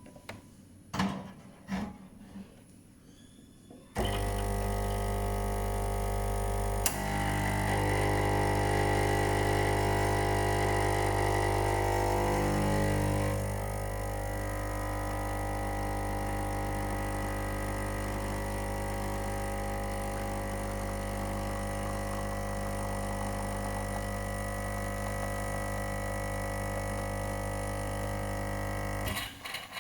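Nuova Simonelli Oscar 2 espresso machine's vibratory pump running through a shot: a steady hum that cuts in about four seconds in, is louder for the next ten seconds or so, then holds level and stops abruptly near the end. A few clicks come before the pump starts.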